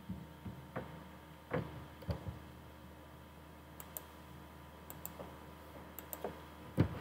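Computer mouse clicking: a dozen or so short, irregular clicks, some in quick pairs like double-clicks, over a faint steady hum.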